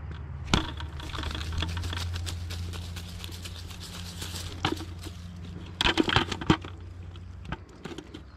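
Scattered sharp clicks and knocks over a steady low hum: a single knock about half a second in, another near the middle, then a quick cluster a little after that and one more near the end.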